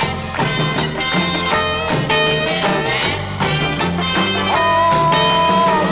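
Instrumental break of a 1963 novelty song record: the band plays on without vocals, with one long held note near the end.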